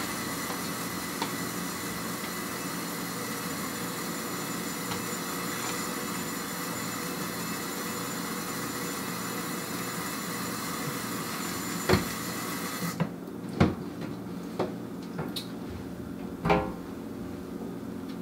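Tap water running through a hose into a plastic film developing tank as a pre-wash for the film, cutting off about thirteen seconds in. A few sharp knocks follow as the tank is handled.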